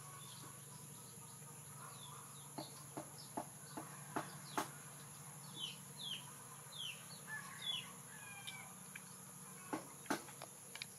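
Birds chirping: short, high calls that each fall in pitch, coming in a loose run through the middle, with a few faint clicks between them.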